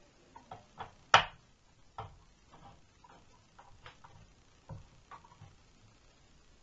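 Scattered clicks and light knocks of the extension table being handled and seated against the free arm of a Łucznik KL. 441 sewing machine, with one sharp click about a second in the loudest.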